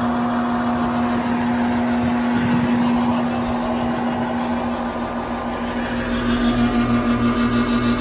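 Residential AC condenser unit running: the compressor and condenser fan motor give a steady electrical hum, and a pulsing throb of about two to three beats a second comes in near the end. The fan motor is running but not at full speed, which the tech takes for a failing, overheating motor.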